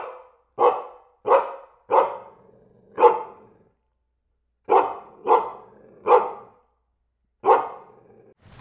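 Dog barking: nine single barks in two runs, five then four, with a pause of about a second and a half between the runs.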